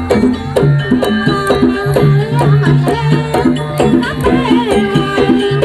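Javanese jaranan (kuda lumping) ensemble music: hand drums and tuned gong-chime percussion play a fast, steady rhythmic pattern, with repeated pitched struck notes.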